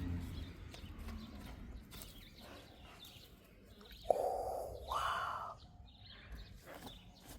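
A bird calling twice, two harsh calls about a second apart, the second higher-pitched than the first, over a quiet background.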